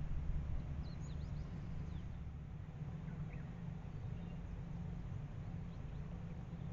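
Steady low rumble of wind on the microphone, with a few faint, high, short chirps from small birds in the first half.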